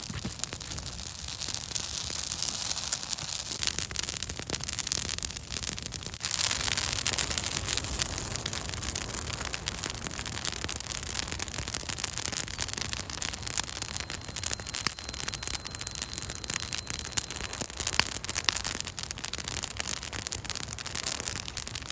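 Large brush pile fire burning, with a steady rush and many small crackles and pops; it grows louder about six seconds in.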